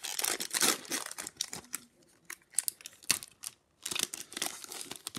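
Foil wrapper of a Fleer Ultra hockey card pack being torn open and crinkled in the hands: dense crackling for the first second and a half, then scattered crackles, with another spell of crinkling near the end.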